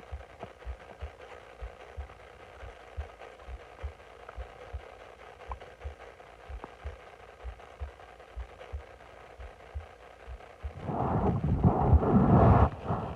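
Bloated stomach growling: soft low thumps and faint gurgles, then near the end a loud gurgling growl lasting under two seconds.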